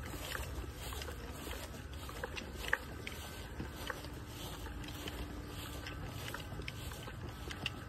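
Outdoor ambience: a low rumble of wind on the microphone, with faint footsteps on grass. A faint steady hum joins about three and a half seconds in and fades before the end.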